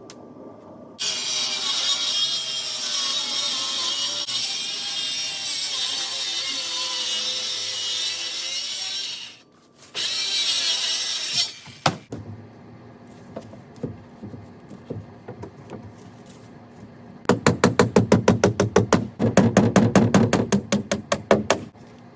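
A power saw cutting for about eight seconds, with its pitch wavering under load, then a second short cut. Later comes a fast, even rattle of about nine strokes a second that lasts about four seconds.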